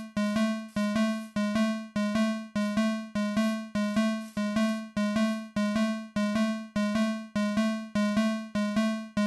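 Fire alarm chime sounding a steady repeated ding, about two and a half strikes a second, each one low tone that fades before the next strike.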